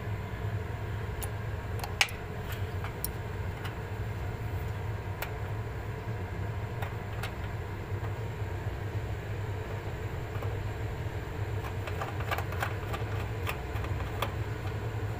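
Scattered light metallic clicks and taps of a mounting nut being fitted onto a split AC compressor's mounting bolt, with one sharper click about two seconds in and a cluster near the end, over a steady low hum.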